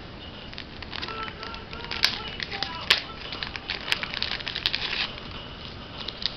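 Small plastic packets and wrappings of a survival kit being handled, crinkling and clicking in a busy run for a few seconds before it tails off.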